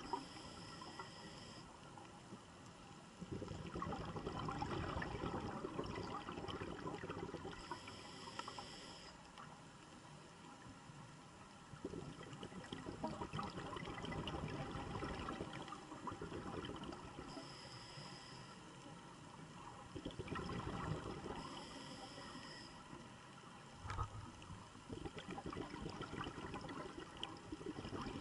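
Scuba diver's regulator breathing heard underwater: exhaled bubbles rumbling and gurgling in stretches a few seconds long, with quieter gaps between breaths.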